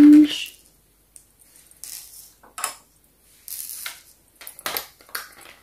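Light clicks, taps and rattles of small plastic dollhouse accessories from a Sylvanian Families playset being handled and set down on a plastic toy table.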